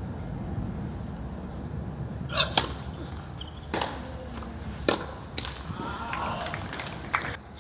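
Tennis racquets striking the ball in a serve and the rally that follows: a series of sharp pops roughly a second apart, over a low steady hum.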